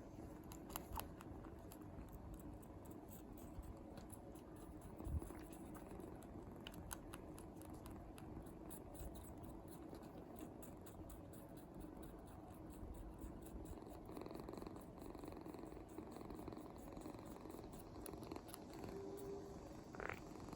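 Young kitten purring steadily while sucking on a finger, with faint scattered sucking clicks. There is one soft knock about five seconds in.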